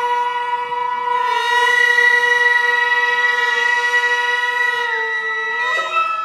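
Traditional wind-instrument music in the style of shrine gagaku. A reedy wind instrument holds one long steady note, and a higher tone joins about a second in. Near the end the pitch bends upward into separate notes.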